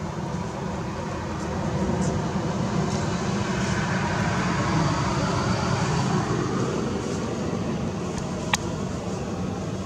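Steady rumbling background noise that swells over several seconds and eases off again, with one sharp click near the end.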